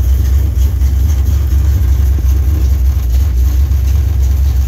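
Rebuilt 1968 Chevrolet 327 small-block V8, bored .060 over with a lumpy cam, idling steadily on its first start in the car: a loud, deep, even rumble.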